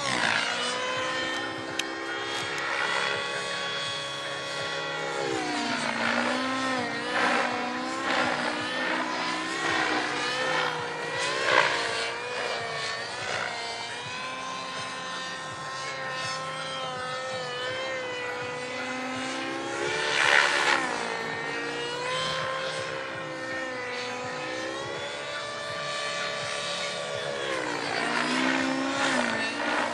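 Align T-Rex 700 radio-controlled helicopter flying. Its rotor and drive hum rises and falls in pitch as it manoeuvres, and it swells louder twice, about a third and two-thirds of the way through.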